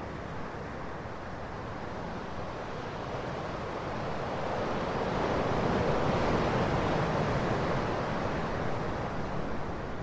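Ocean surf: a steady wash of waves that swells as a wave rolls in about halfway through, then eases back.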